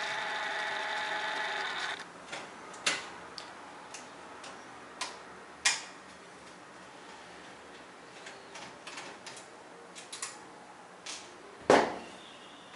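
A steady mechanical whir for about two seconds, then scattered light clicks and taps of a screwdriver and screws on an LCD panel's sheet-metal frame as the panel's screws are taken out.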